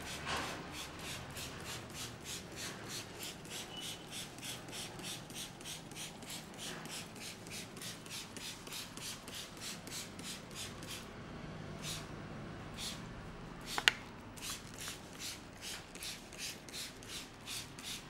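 Fingers rubbing and scratching through damp hair and scalp during a head massage, in quick even strokes about three to four a second that slow a little in the second half. One sharp click stands out near the end.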